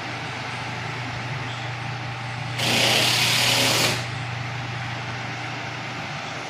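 Mondial Super Power 40 cm six-blade table fan running: a steady motor hum under a rush of air. About two and a half seconds in, a loud hiss breaks in for about a second and a half, then stops.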